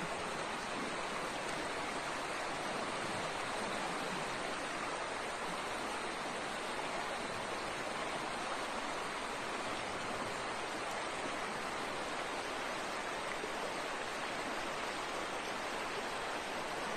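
River water rushing steadily over rocks: an even, unbroken noise that does not change.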